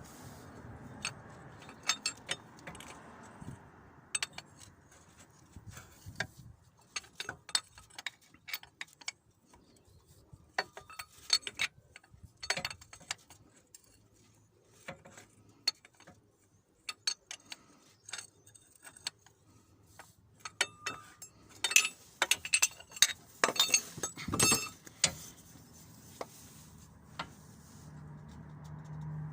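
Steel spanner clinking and clicking against the oil pressure switch and the metal around it in irregular bursts as the switch is worked loose by hand.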